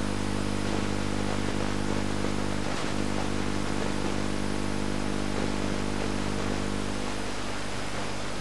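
Steady hiss with a low, even buzz beneath it: the noise a TV receiver or VCR puts out where no proper sound carrier is decoded, so the programme's own audio is missing.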